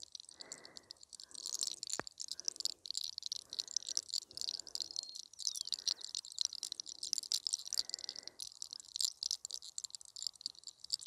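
Dense crackling and rustling of hair being rolled and rubbed between fingers, with softer rubbing strokes about once a second.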